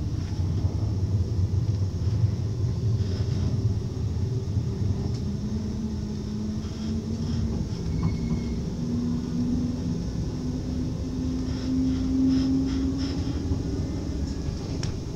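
NS ICMm (Koploper) electric multiple unit running, heard from inside the carriage: a steady low rumble of wheels on the track with a few short clicks over rail joints or points. Through the middle a faint tone rises slowly in pitch.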